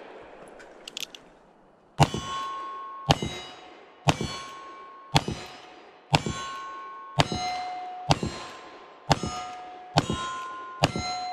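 Pair of Pietta Great Western single-action revolvers firing black-powder .38 Special loads at steel targets: about ten shots, roughly one a second, each followed by the ring of a struck steel plate.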